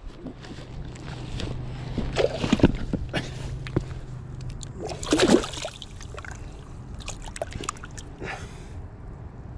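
Boots scuffing and knocking on shoreline rocks at the water's edge, with a few short knocks and light splashing of the lake water, and one louder scraping burst about five seconds in.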